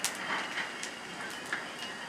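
Kitchen cooking sounds: a steady hiss, with a few light clicks of a utensil against a pan or dish.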